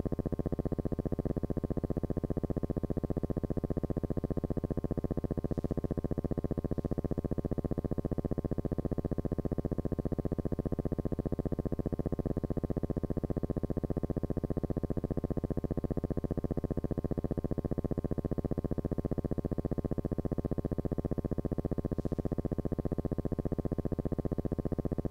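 Steady synthesizer-like buzzing drone with a fast, even pulse.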